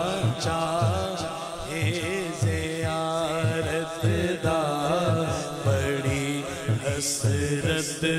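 Naat sung unaccompanied into a microphone: a solo male voice draws out a long, wavering, ornamented line, over a steady low chanted pulse of about two beats a second from the backing voices.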